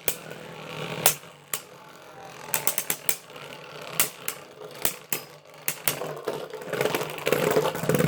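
Irregular sharp plastic clicks and rattles from Beyblade tops and a string launcher being handled, with a quick run of clicks about two and a half seconds in and busier rattling near the end.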